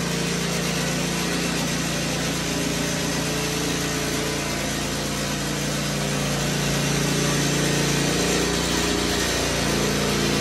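Small gasoline engine of a walk-behind power trowel running steadily as its blades finish a freshly poured concrete slab. The drone grows a little louder in the last couple of seconds.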